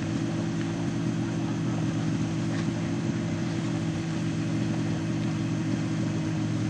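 Snowmobile engine running steadily at a constant pitch.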